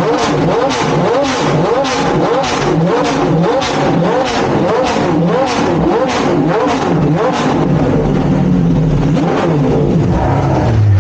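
Pagani V12 engine revved in quick, evenly repeated throttle blips, about two a second, each rising and falling in pitch. Later it holds steadier, and it drops to a lower steady note near the end.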